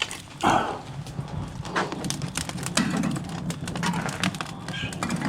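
Pieces of scrap wood knocking and clattering irregularly as they are fed into a smoker's fire, with a louder knock about half a second in.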